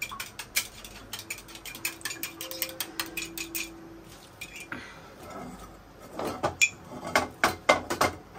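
Kitchen utensils clattering against cookware during cooking: a run of quick light clicks and taps, then a few louder knocks and clatters near the end.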